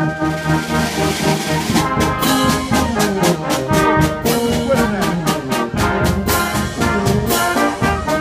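Brass marching band playing a march: trombones and trumpets over bass drum and clash cymbals. The drum and cymbal strokes keep a steady beat that comes through strongly from about two seconds in.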